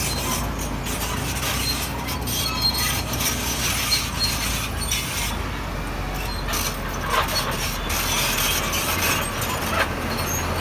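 Heavy earthmoving machinery working stone: a diesel engine running steadily, with irregular clanks, squeaks and clatter of rock and metal, a few sharper knocks standing out.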